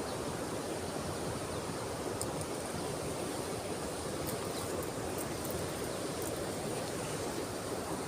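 Steady rush of a flowing stream, with a few faint ticks.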